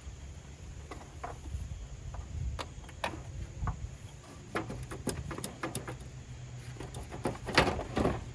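Scattered light clicks and knocks of plastic trim clips and parts being worked loose by hand and tool, over a low steady hum; the loudest cluster of clicks comes near the end.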